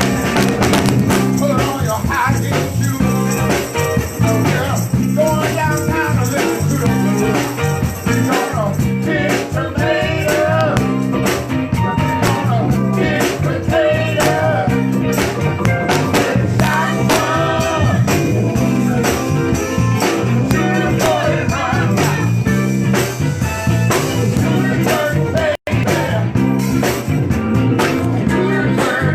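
A band playing a song with a singing voice and rhythmic percussion; the sound cuts out for an instant about 25 seconds in.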